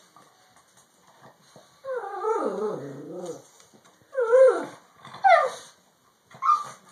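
Brindle pug puppy vocalising: one long wavering call that falls in pitch, starting about two seconds in, then three short calls that each fall in pitch.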